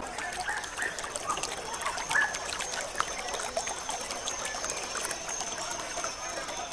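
Water trickling and lapping, with a few short bird chirps and a thin, steady high-pitched tone.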